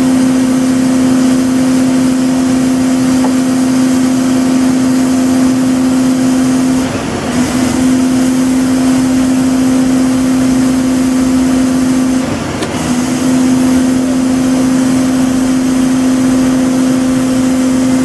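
Daedong DPD350T vibratory pile driver running on a Hyundai R300LC-9A excavator's hydraulics: a loud, steady hum at one fixed pitch with an overtone above it. It falters briefly about seven seconds in and again about twelve and a half seconds in.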